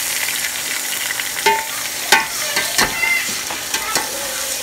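Chicken pota (gizzards) sizzling in hot oil with fried onions in a metal pot, just added. A slotted metal spoon stirs and scrapes against the pot, with several sharp clicks and knocks over the steady sizzle.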